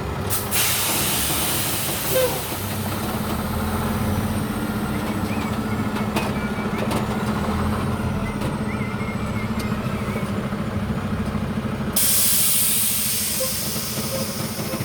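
A vehicle running with a steady hum, with loud hissing bursts of air shortly after the start and again about twelve seconds in.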